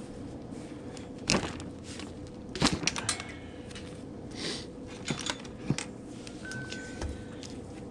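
Irregular clicks and knocks of small hard parts and hand tools being handled during a fan motor swap, over a steady faint hum.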